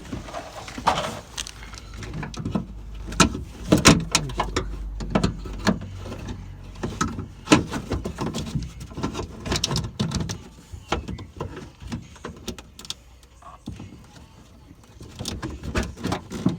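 Irregular knocks, clicks and rattles of a car door's lock and latch mechanism being wiggled and pulled out through the inside of the door.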